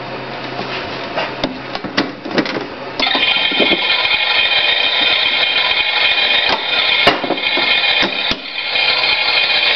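Toy washing machine running its wash cycle, with irregular clicks and knocks, and a steadier hum with a few held tones setting in about three seconds in; music plays in the background.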